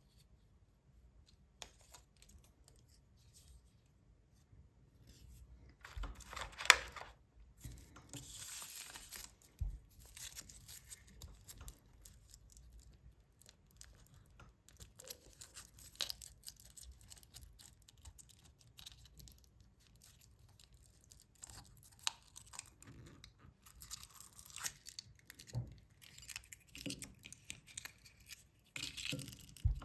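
Foil wrappers of chocolate surprise eggs being torn open and crinkled, in irregular bursts with scattered sharp clicks and taps.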